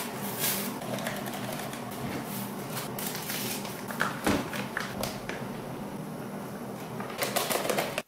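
Light taps and clinks of lightweight camping pots and a cooking utensil being handled over a steady hiss, with a cluster of quick clicks near the end.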